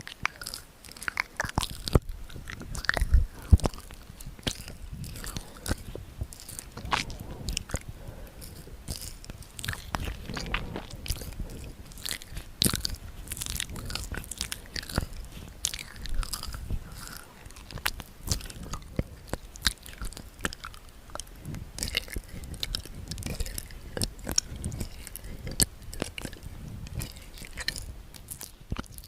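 Close-miked ASMR mouth sounds: a dense, irregular run of wet clicks and smacks, several a second, with no let-up.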